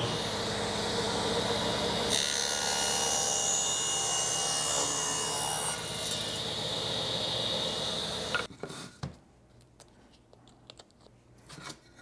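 Table saw running with a high whine and ripping a cedar board lengthwise. The blade is in the wood from about two seconds in to nearly six seconds, then the saw runs free. The sound stops abruptly about eight and a half seconds in, followed by a few light knocks.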